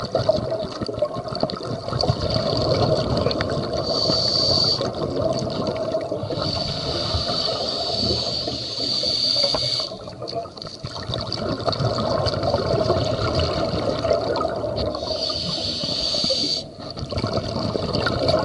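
Scuba diver's breathing heard underwater through a regulator: a hiss that comes and goes every few seconds over a steady rush of bubbling and gurgling air.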